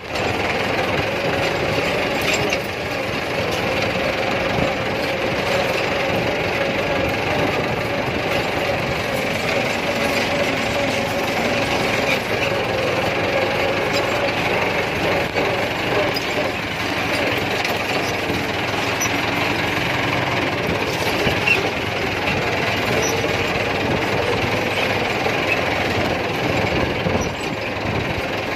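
Massey Ferguson 375 tractor's diesel engine running steadily, heard from the driver's seat close to the exhaust stack.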